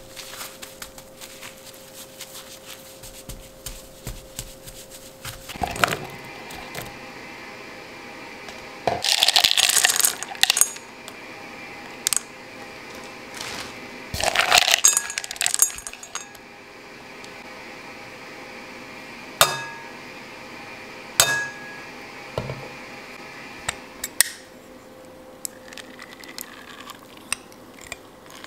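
Strawberries and frozen blueberries rattling into a glass mixing bowl in two bursts, then a few sharp clinks against the glass that ring briefly.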